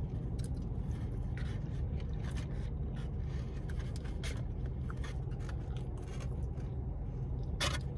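Quiet eating sounds, with scattered faint clicks and scrapes of food and packaging being handled and a louder click near the end, over a steady low hum.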